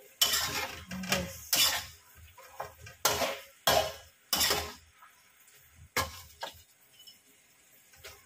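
Long metal ladle scraping and clanking against an aluminium wok as pieces of chicken are stirred and turned, about nine sharp strikes at irregular intervals, most of them in the first five seconds.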